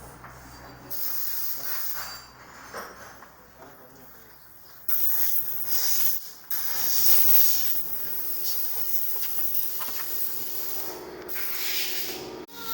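Sanding on a Peugeot 307's body panel during bodywork repair: irregular rubbing and rasping, louder and more continuous from about halfway in.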